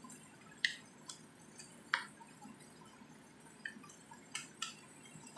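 Wooden spatula and plastic spoon stirring and tossing shredded chicken in a nonstick frying pan, knocking against the pan: two sharper knocks in the first two seconds, then several lighter taps.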